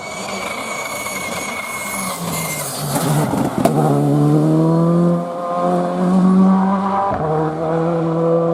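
Rally car driven hard past the microphone: a rising rush of noise with a high whine as it approaches, then the engine at full throttle, its note climbing and dropping back twice at upshifts.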